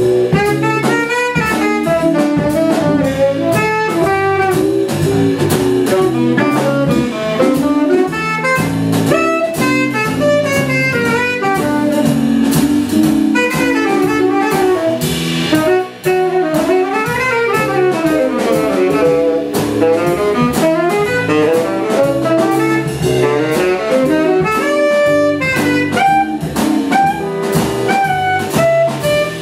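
Live jazz fusion band: a saxophone plays quick runs that climb and fall, over electric guitar, electric bass and a drum kit with cymbals.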